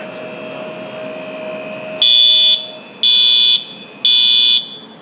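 Steady hum of a rotary plow feeder's machinery, then, about two seconds in, a loud electronic warning alarm beeps three times, each beep about half a second long, one a second.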